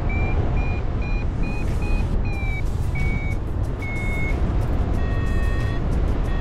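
Paragliding variometer beeping its climb tone: quick beeps, about two or three a second, rising slightly in pitch, then slower and lower beeps as the lift weakens, and a longer, lower tone near the end. Under it, heavy wind rumble on the microphone.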